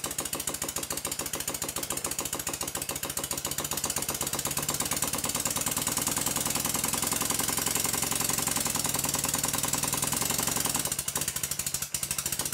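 Stuart Sirius twin-cylinder, single-acting model steam engine running fast on compressed air, a rapid, even stream of exhaust beats. Its crankshaft end float has been shimmed out with two washers, and it is running smoothly. The beat dips briefly a couple of times near the end.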